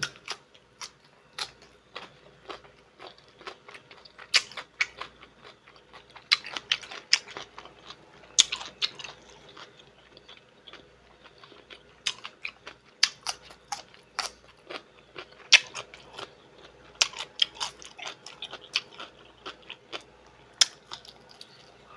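A person chewing food: an irregular run of short wet smacks and clicks from the mouth.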